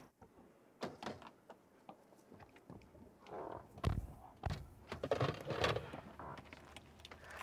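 Inside a car: a few light clicks, then a car door shutting with a low thud about four seconds in, amid rustling as people settle into the seats.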